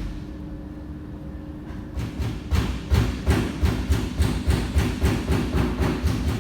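A fast, even series of sharp knocks, about three a second, starting about two seconds in over a low steady hum.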